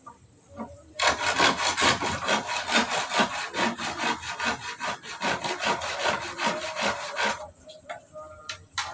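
Hand saw cutting through wood with quick, even back-and-forth strokes, starting about a second in and stopping near the end.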